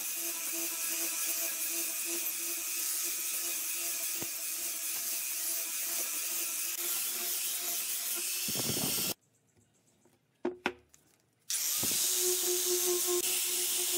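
Angle grinder with a sanding disc running against wood: a steady motor whine under the hiss of the abrasive on the grain. About nine seconds in the sound cuts out abruptly for a couple of seconds, with one short knock in the gap, then the grinder comes back at the same steady pitch.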